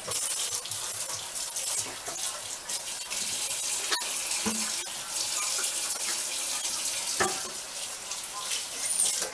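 Kitchen faucet running full into a sink, a steady rush of water that is shut off at the end, with a couple of light knocks partway through.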